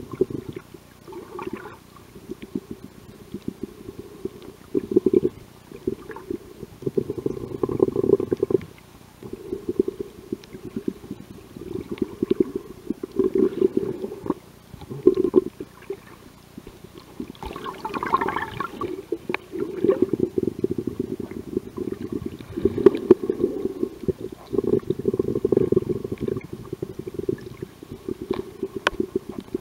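Muffled underwater rumble and sloshing of water moving around a camera held under the surface, coming in irregular surges. A brief, brighter burst of sound rises above the rumble about eighteen seconds in.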